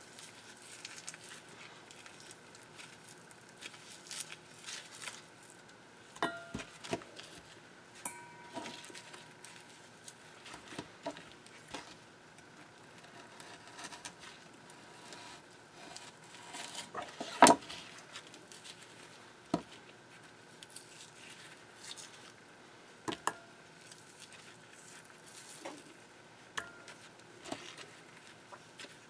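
Scattered soft clicks, taps and rustles of gloved hands and a fillet knife working frozen squid on a plastic cutting board, as the ink and innards are pulled out and the tubes are slit. One sharper knock comes a little past the middle.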